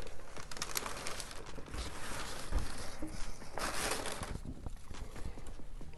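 Tissue paper rustling and crinkling inside a cardboard sneaker box as the paper is pulled open, with the loudest rustle a little past halfway.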